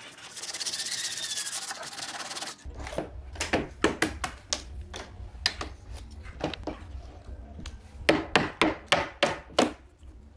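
Sandpaper rubbed by hand along a wooden rail, a dense scratchy rustle that stops about two and a half seconds in. Then a wooden mallet knocks on the wooden joint pieces of a couch frame, sharp knocks in irregular groups, loudest in a quick run of about seven near the end.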